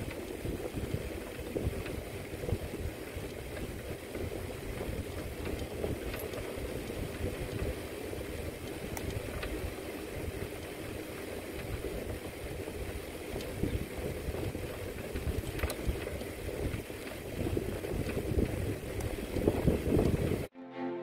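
Wind buffeting the microphone of a camera carried on a moving bicycle, mixed with the rush of riding along a paved road: a steady, rough rushing noise. It cuts off suddenly near the end.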